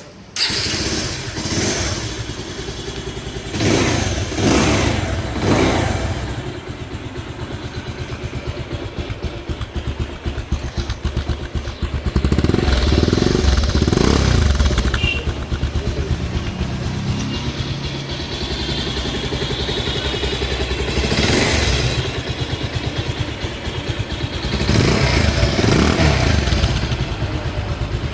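Bajaj Pulsar 220's single-cylinder engine running at idle in a steady pulse, with the throttle blipped several times so the revs rise and fall.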